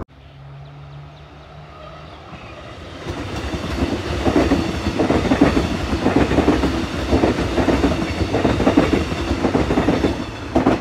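Melbourne Metro electric suburban train passing close by, its wheels clattering over the rail joints. A steady low hum first, then the passing noise grows much louder about three seconds in.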